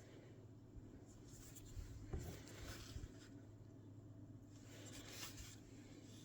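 A mixing stick faintly scraping and rubbing as it smooths fresh JB Weld epoxy over a mended candle holder. There are two short spells of scraping, about two seconds in and again about five seconds in, with a soft knock near the first.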